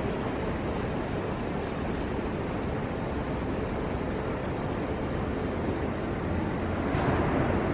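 Freight train hauled by an EF210 electric locomotive rolling past: a steady, even rumble of wheels on rail, with a faint click about seven seconds in.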